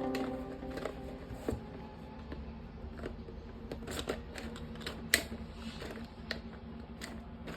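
Toy plastic parts being handled, with scattered sharp clicks and light rattles; the loudest click comes a little past five seconds in. Background music fades out about a second in.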